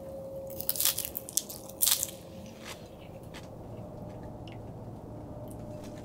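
Crisp crunching bites into a napa cabbage leaf wrap of stir-fried pork: a few sharp crunches in two quick clusters within the first two seconds, then faint background.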